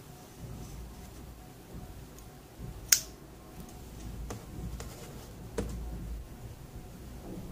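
Metal drill-driver bits and a hex nut driver being handled in a hard plastic DeWalt bit case: soft handling rumble with a few sharp clicks as pieces are pulled from their plastic slots, the loudest about three seconds in.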